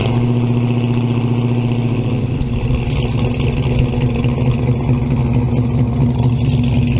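Plymouth Barracuda's V8 engine idling steadily through its exhaust, with no revving; its tone changes slightly about two seconds in.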